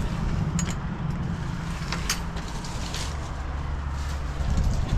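An engine running steadily with a low hum, with a few short clicks or rustles over it.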